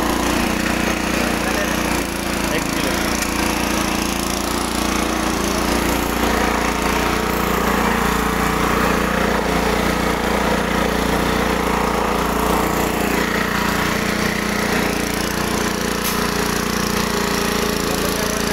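Motor-driven flour mill (chakki) running steadily while grinding roasted chickpeas into sattu: a continuous hum of the drive with a dense grinding noise over it.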